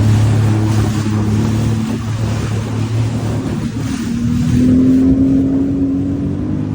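Sea-Doo GTX 260 Limited's supercharged three-cylinder Rotax engine running steadily, then rising in pitch about halfway through as it is revved. The seller states it has no faults or abnormal noises.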